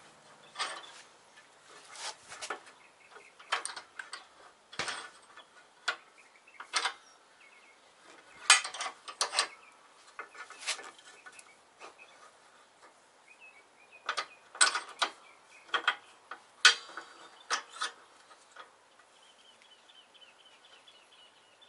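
Irregular metal clinks and clanks as a steel control arm is handled and set in a bench vise and the vise handle is worked, setting up to press in a control arm bushing. The two loudest clanks come about 8 and 17 seconds in.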